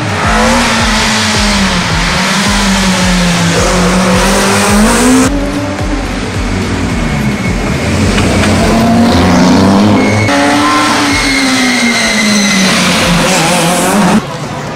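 Drift car's engine revving up and down under load with tyres squealing and sliding; the sound changes abruptly twice midway, and drops in level just before the end.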